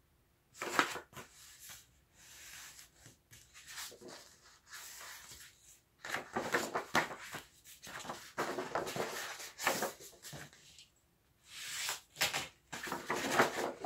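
Plain paper being folded in half and creased by hand, with the palms rubbing along the fold to press it sharp, in irregular rustling bursts.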